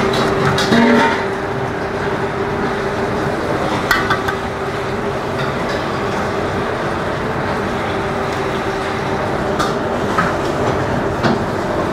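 Steady loud rushing noise with a constant low hum from running kitchen equipment. A few light clicks of a metal spoon come through it, about four seconds in and several times near the end, as masala paste is spread over a fried fish.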